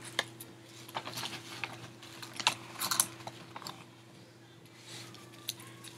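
Irregular light clicks and crinkles of plastic blind-bag toy packaging and small plastic toy pieces being handled and opened.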